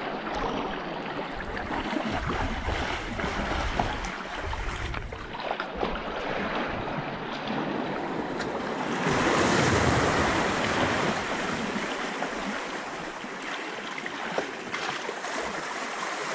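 Small waves washing in over the sand and against the rocks in shallow water, with wind buffeting the microphone; the wash swells louder about nine seconds in.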